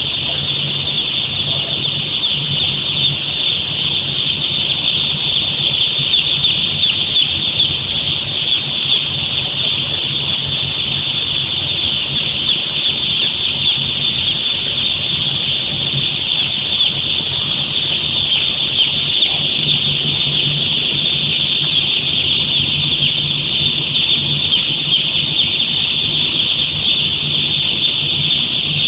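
A large flock of poultry cheeping together, a dense, steady high-pitched chatter, over a steady low hum.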